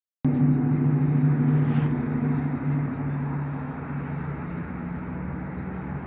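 Car engine running with a steady low note, starting suddenly about a quarter second in and slowly easing off.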